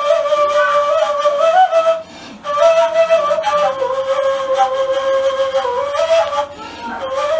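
Kaval, the Turkish end-blown shepherd's flute, playing a slow solo melody in phrases, with a short breath break about two seconds in and another near the end.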